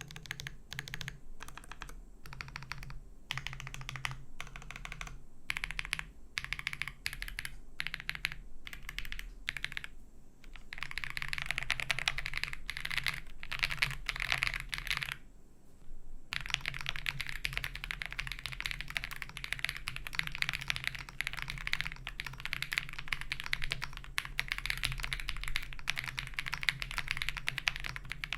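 Typing on a custom mechanical keyboard: an acrylic-cased Owlab Spring with KTT Peach linear switches and PBT keycaps. Keystrokes come slower and spaced at first. From about a third of the way in they run into fast, continuous typing, with one short pause.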